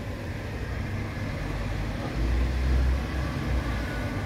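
Passenger lift's drive motor running with a steady low hum while the cabin travels, heard through the glass of the shaft, with a deeper rumble swelling for about a second and a half midway.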